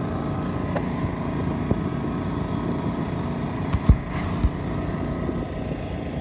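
A small engine running steadily, with two dull knocks a little past the middle.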